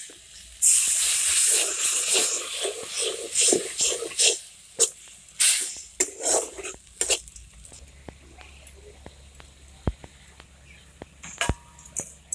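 Liquid hitting the hot aluminium kadai of frying chicken parts sets off a loud sizzling hiss about half a second in, which dies down over the next few seconds. A metal spatula scrapes and clinks against the pan throughout.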